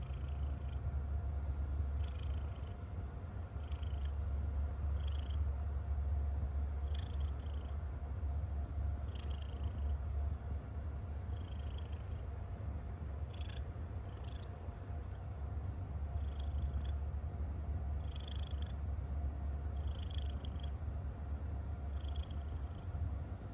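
Tabby domestic cat purring steadily while being stroked, a deep continuous purr with a faint hiss recurring about every two seconds. The purr of a content cat.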